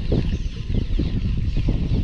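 Wind buffeting the microphone: a loud, uneven low rumble in gusts.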